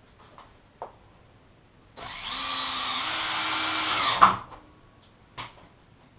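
Cordless drill-driver driving a screw into a timber frame joint: about two seconds of steady motor whine that steps up slightly in pitch just after it starts, ending in a sharp knock. A few light knocks of handling come before and after.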